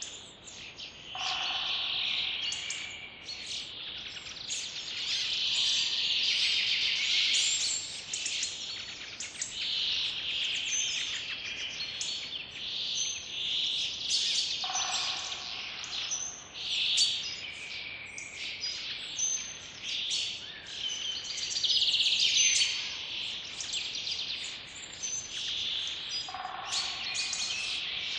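Forest birds singing in a dense chorus, with many overlapping chirps and trills. A fuller, lower call comes three times, about twelve seconds apart.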